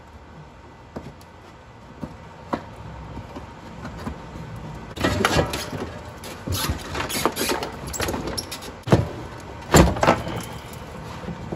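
A truck's inner fender liner being flexed, scraped and pulled out of the wheel well. A few light clicks come first, then about five seconds in a run of rubbing and scraping with sharp knocks and pops, the loudest two near the end.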